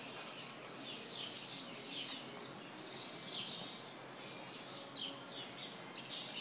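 Small birds chirping continuously: many quick, high, falling chirps overlapping one another.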